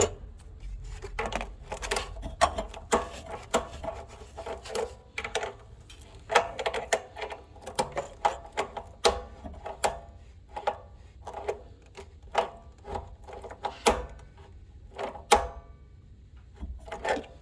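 Irregular clicks and knocks, about one or two a second, some with a brief ring, from pipe and fittings being handled and worked by hand during plumbing work on a water heater's relief-valve drain line.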